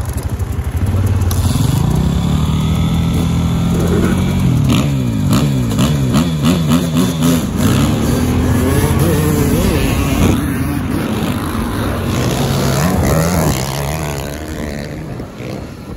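Several dirt bike engines at full throttle in a drag race. The engine pitch climbs, drops and climbs again as the riders shift up through the gears. The engines fade away over the last couple of seconds.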